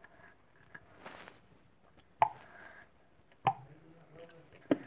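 Glue being poured from its bottle into a container, with three short sharp plops about a second apart.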